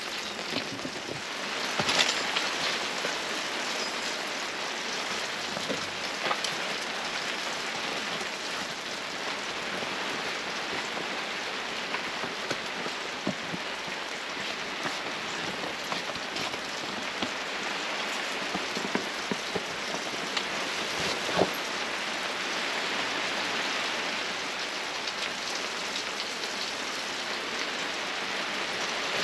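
Steady rain falling, with a few sharper drop strikes now and then.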